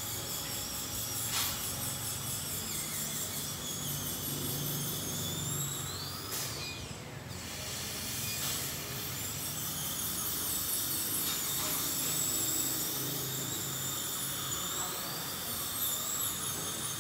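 Dental drill whining at a high pitch on a tooth under root canal treatment, its pitch sliding up and down as it cuts, with a brief stop about seven seconds in.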